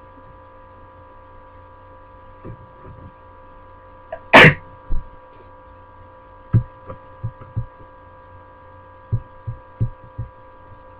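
A person sneezes once, loudly and suddenly, about four seconds in. It is followed by a scatter of short, soft low thumps, with a steady electrical hum underneath throughout.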